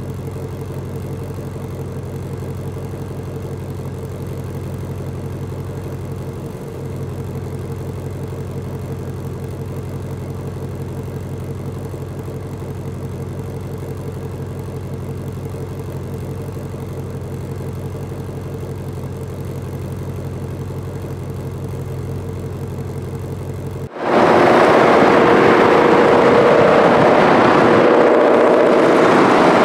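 Ford Mustang Shelby GT500's supercharged 5.2-litre V8 idling steadily. About 24 seconds in it cuts suddenly to the much louder sound of the car driving fast with the engine at high revs.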